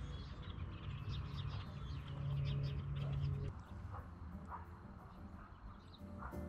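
Small birds chirping in the background, with a low steady hum for a couple of seconds in the first half.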